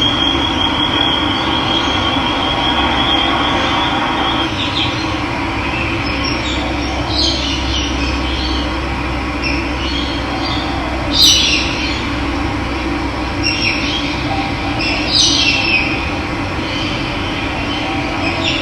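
Running water flowing steadily, with birds calling over it: a high steady trill in the first few seconds, then several short calls, the loudest about eleven and fifteen seconds in.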